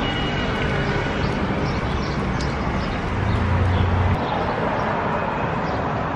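City street noise while walking: steady traffic rumble that swells briefly about three seconds in, with light footsteps of sandals on the pavement.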